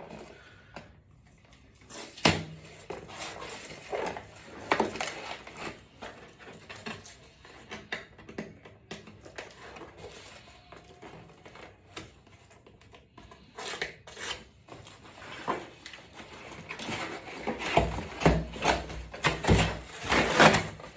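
A cardboard box holding a TV wall mount being opened by hand: scattered scrapes, rubbing and knocks of packaging and parts, getting busier with heavier thumps and clatter in the last few seconds.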